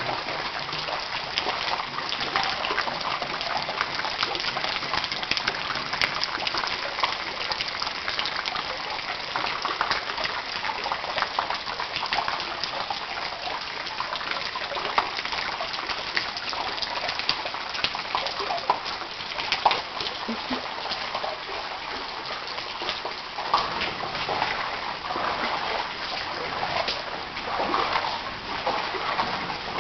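Floodwater from an overflowing canal rushing along a road in a steady gush, with scattered splashes.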